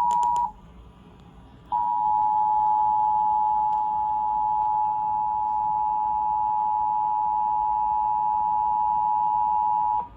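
Emergency Alert System attention signal: the two-tone alert (853 Hz and 960 Hz together) played through a television, a loud, steady pair of tones. It breaks off about half a second in, resumes over a second later and cuts off suddenly near the end, just before the test announcement is read.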